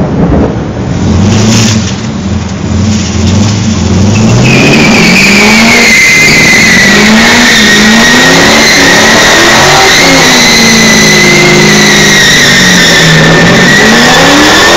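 Supercharged Holden SS Commodore V8 revving up and down in a burnout. About four seconds in, the rear tyres break into a steady, loud squeal that continues, with the engine note rising and falling under it.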